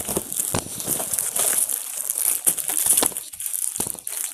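Plastic wrapping and cardboard rustling and crinkling as packs of T-shirts are handled and pulled out of a cardboard carton, with scattered small knocks of boxes being moved.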